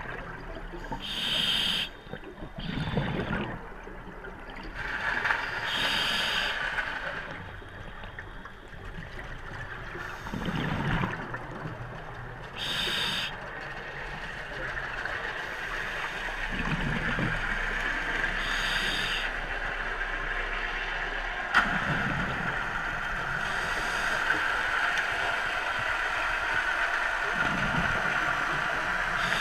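Scuba diver breathing through a regulator underwater: short hissing inhalations alternating with low bubbling exhalations every few seconds, over a steady underwater hiss.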